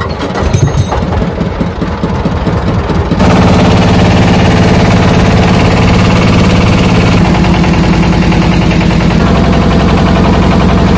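A small boat's engine running steadily with the boat under way, its hull throwing up a wake. It is quieter at first and becomes loud and steady about three seconds in.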